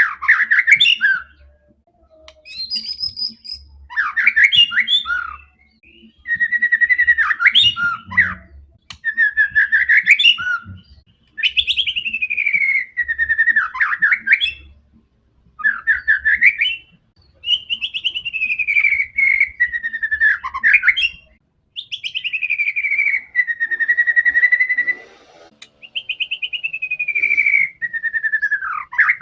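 White-rumped shama (murai batu) in full, fierce song, the kind used to spur other shamas into singing. It sings about ten loud phrases of one to three seconds each, separated by short pauses, made of sweeping, mostly falling whistled notes and fast trills.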